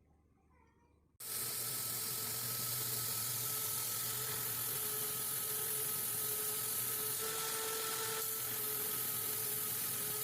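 Power grinder running with a steady hiss and hum as a wooden knife handle is rough ground to shape. It starts abruptly about a second in.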